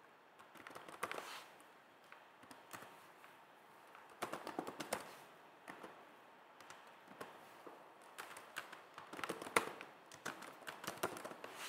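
Typing on a computer keyboard: quiet keystroke clicks in short, irregular runs with brief pauses between them.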